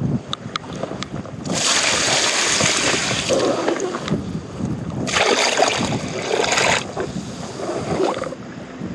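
Water splashing in two bursts of a couple of seconds each, with a few light clicks just before the first.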